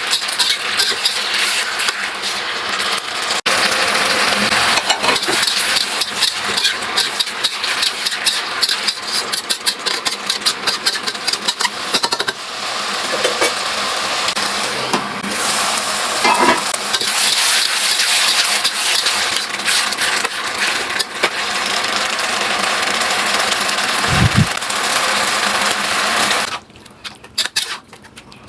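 Food sizzling in a hot wok while a spatula stirs and scrapes it in many quick strokes; the sizzling drops away sharply near the end.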